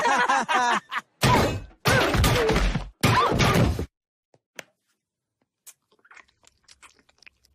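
Three loud cartoon impact sound effects, heavy hits and smashes about a second apart, then only faint scattered ticks.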